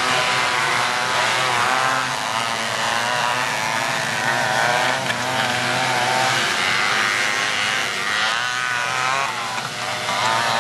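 Several Honda Odyssey and Pilot off-road buggies racing, their engines buzzing and revving up and down together, the pitches wavering as they accelerate and back off through the turns.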